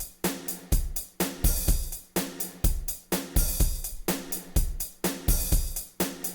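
Sampled Ketron SD90 drum kit played back as a looped pattern of kick, snare, hi-hats and cymbals, with a steady repeating beat.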